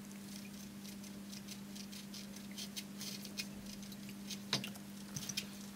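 Dennerle Nano Alginator magnetic algae cleaner, its plastic pad scraping hard coralline red algae crusts off aquarium glass: faint, irregular scratching clicks, the sound of how hard the crusts are. A steady low hum runs beneath.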